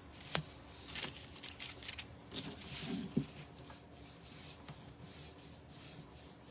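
A paintbrush rubbing against a wooden frame in short scratchy strokes, with a sharp click about a third of a second in; the strokes thin out in the second half.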